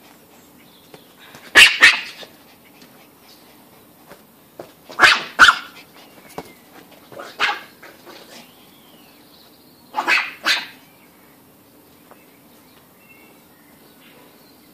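Pomeranian barking in four short bursts a few seconds apart, most of them two quick sharp barks.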